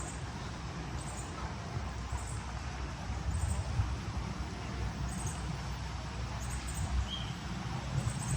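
Park ambience: a steady low rumble, with short high chirps of small birds every second or so and one clearer chirp near the end.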